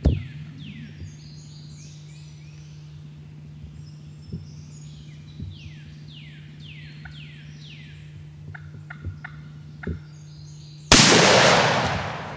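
Eastern wild turkey tom gobbling, a rapid series of falling notes, then a single loud shotgun blast about eleven seconds in that fades over a second or so: the hunter's shot at the bird.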